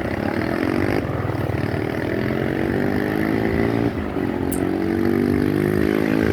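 Vehicle engine accelerating, its pitch climbing steadily, dropping at a gear change about four seconds in, then climbing again.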